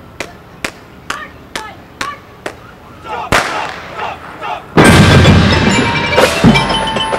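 Marching band percussion clicking a steady count, about two clicks a second, then a single sharp hit a little past three seconds in. Almost five seconds in, the full band comes in loudly with brass and percussion.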